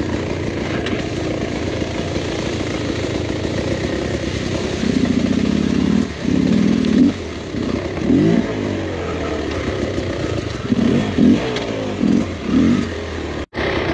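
Dirt bike engine running at low speed while pushing through brush, then revving up and down in a series of short throttle bursts from about five seconds in.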